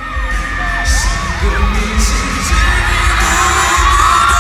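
Live arena pop concert recorded on a phone: a heavy bass beat from the PA under many fans screaming and cheering, with a singer's voice coming through toward the end.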